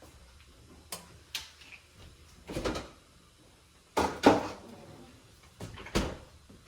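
Scattered kitchen knocks and clunks, about six in all, the loudest a little over four seconds in.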